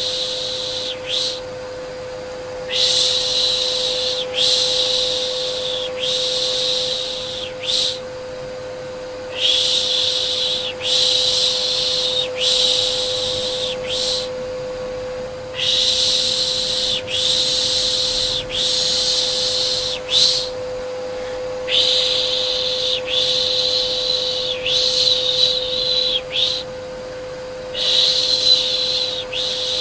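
Vacuum cleaner running with a steady hum, under repeated 'shh' shushing to soothe a baby. The shushes come in bouts about every six seconds, each broken into several shorter shushes.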